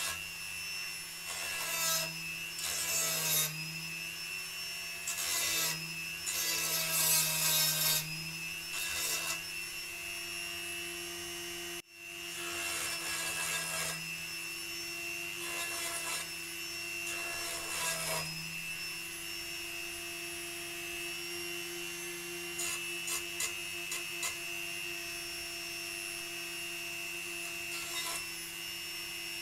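Dremel rotary tool with a small sanding drum running with a steady whine, grinding into thin wooden planking in repeated passes to shape a curve. The grinding passes are heavier in the first half and lighter later, and the sound cuts out for a moment near the middle.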